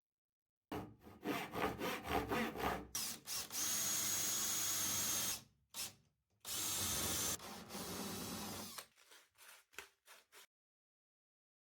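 Wood being sanded: quick rubbing strokes at about three a second, then two long steady stretches of abrasive noise with a faint high whine, and a few light taps near the end.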